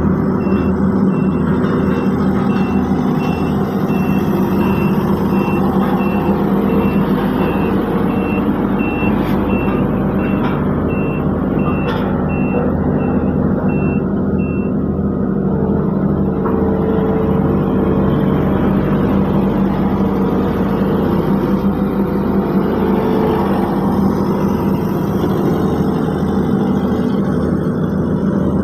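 Heavy diesel paving machinery running steadily with a pulsing low rumble, while a reversing alarm beeps about twice a second and stops about halfway through.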